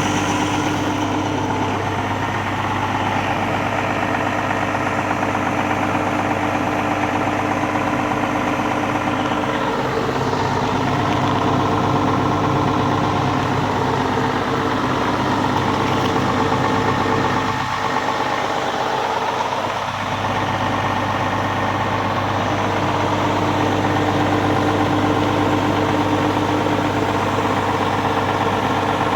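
John Deere 7405 farm tractor's diesel engine idling steadily, its pitch dipping and recovering slightly about halfway through.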